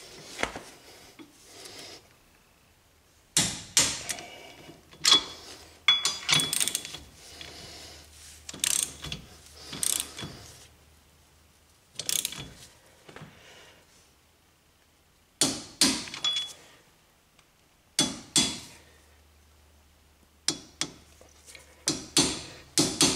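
Socket wrench ratcheting in short bursts of sharp clicks, with pauses between, as the rear hub bolts are run down and torqued.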